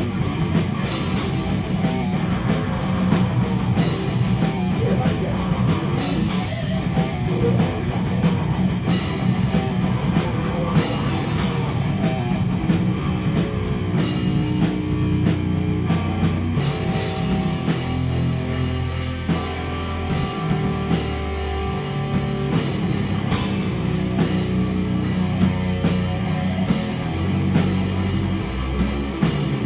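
A rock band playing loud and live: drum kit with cymbals under guitar and bass. About halfway through, the cymbals drop away for a few seconds and held low notes carry on.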